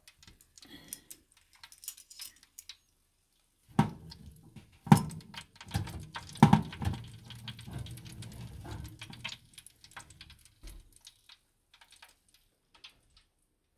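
Metal tongs clinking and clattering against a wire oven rack as roasted pork pieces are lifted out, with a few sharp knocks about four to seven seconds in over a low rumble.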